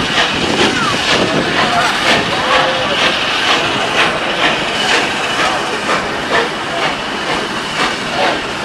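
Passenger railroad car rolling slowly on track, a steady rattling rumble with a wheel clack about twice a second over the rail joints.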